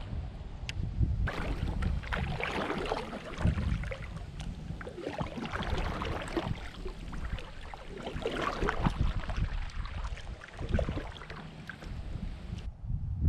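Double-bladed kayak paddle strokes, the blades dipping and splashing in the water at an irregular pace, with wind rumbling on the microphone.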